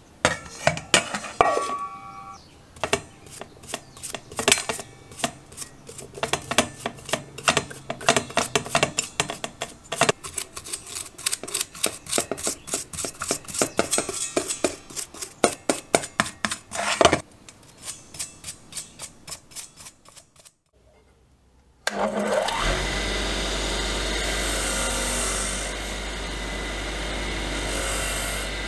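A small stiff brush scrubs loosened red paint off a small steel engine bracket in a stainless steel bowl, in quick scratchy strokes with the odd knock of the part against the bowl. About 22 seconds in, a bench grinder starts running with a steady hum while a small metal part is held against its wheel.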